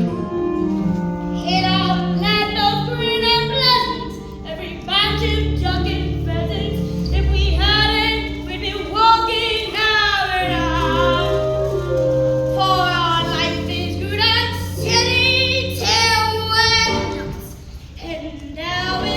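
Children singing a musical-theatre song over instrumental accompaniment with sustained low bass notes, pausing briefly near the end before the next phrase.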